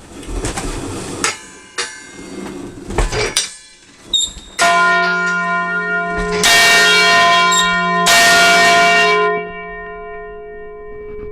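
Large church bell rung by its wheel. First come irregular knocks and rattles as the wheel turns the bell housing. Then the clapper strikes the bell three times, about two seconds apart, and it rings on with a deep hum under several higher tones.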